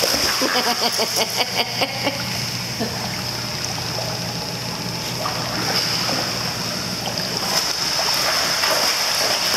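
Pool water splashing as a Doberman puppy paws at a floating balloon and wades through the shallows: a quick run of splashes in the first two seconds, then gentler sloshing over a steady watery hiss.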